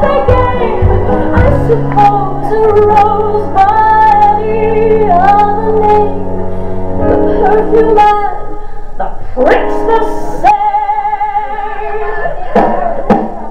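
A solo singing voice holding long, sustained notes with vibrato over an instrumental backing; a little past the middle it settles on one long held note that runs almost to the end.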